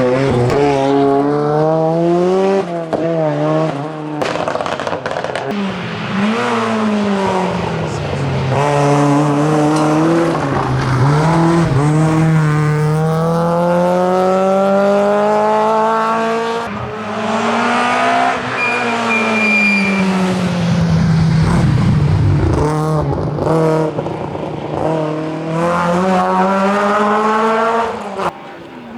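Rally car engine at full throttle on a tarmac stage, the revs climbing through the gears in repeated runs and dropping back between them, with one long climb to high revs in the middle.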